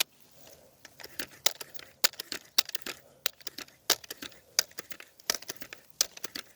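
A single sharp crack of a BB gun shot right at the start, followed by irregular light crackling and clicking.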